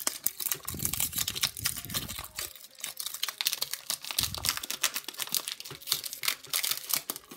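Foil wrapper of a Pokémon trading card booster pack crinkling and tearing as it is pulled open by hand, a dense run of crackles.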